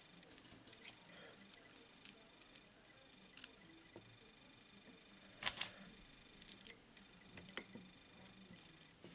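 Faint clicks and crinkles of a thin plastic strip being folded over the back of a fly tied in a vise, with a short louder crackle about five and a half seconds in and a sharp click about two seconds later.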